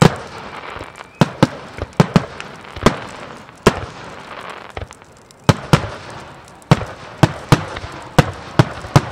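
Fireworks shells bursting overhead: a string of sharp bangs at irregular intervals, about one or two a second, with a pause of a second or so around the middle.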